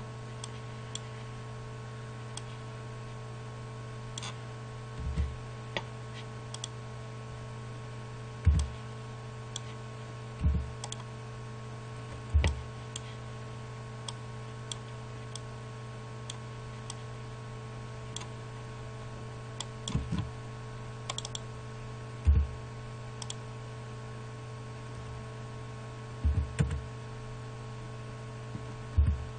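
Irregular clicks of a computer mouse and keyboard, a few at a time with pauses between, some with a dull thump, over a steady electrical hum.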